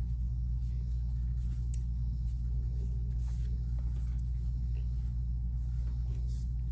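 A steady low hum of room background noise, with faint, brief rustles of clothing being folded and put aside.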